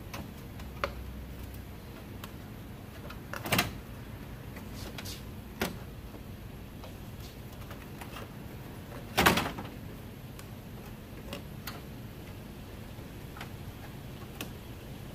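Scattered clicks and knocks of car parts and tools being handled during reassembly of the radiator fan, with a louder knock about three and a half seconds in and another about nine seconds in.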